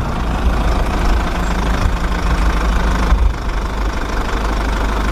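A small motor running steadily: a deep low hum with a rushing noise over it.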